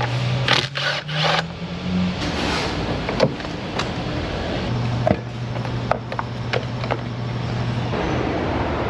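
A Milwaukee Fuel cordless power tool's motor whines steadily in two spells as it spins out battery hold-down and battery-tray bolts. The first spell rises a little in pitch before it stops. Clinks of tool and parts come in between.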